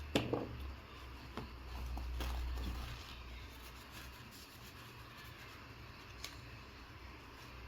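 Faint clicks and taps from handling the parts of an LED bulb, the sharpest just at the start, with a low rumble for the first three seconds and a few isolated ticks after.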